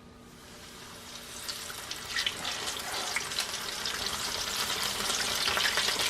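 Breaded chicken thighs sizzling and crackling in hot vegetable oil, growing louder over the first couple of seconds as the chicken goes into the oil.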